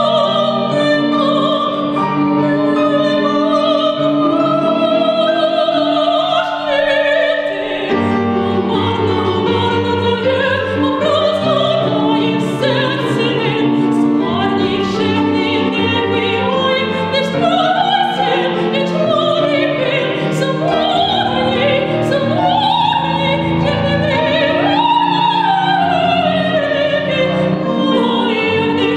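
A woman's operatic voice sings a classical art song with vibrato, accompanied by a Seiler grand piano.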